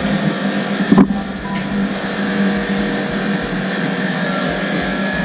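Steady motor hum, with a single short click about a second in.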